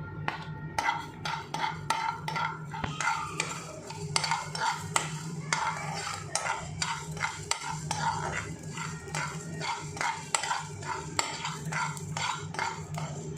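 Metal spatula stirring and scraping whole spices (mustard seed, nigella, ajwain, cumin, coriander, fennel, fenugreek) as they dry-roast in a metal kadai: a dense run of quick scrapes and clicks, over a steady low hum.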